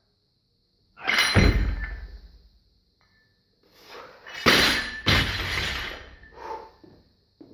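A barbell with bumper plates being snatched: a loud clank and thud about a second in as the lifter catches it under the bar. About four and a half seconds in it is dropped from overhead onto the floor and hits again as it bounces, the plates clanking, with a smaller knock about two seconds later.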